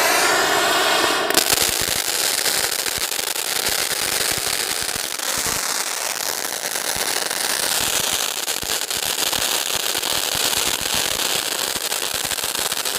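Handheld firework tube spraying a jet of sparks: a shrill hiss for about the first second, then a steady, dense crackling that goes on without a break.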